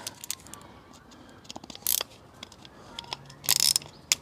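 Light clicks and knocks from handling the plastic airbox and mass airflow sensor housing, then a short burst of ratchet clicking about three and a half seconds in as a ratcheting screwdriver starts on the sensor's retaining screw.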